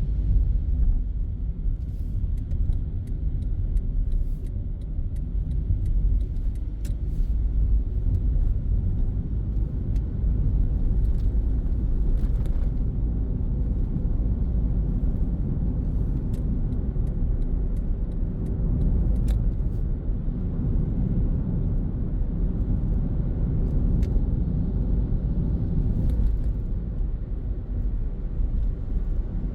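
A car driving on city streets, heard from inside the cabin: a steady low rumble of road and engine noise, with a few faint scattered ticks.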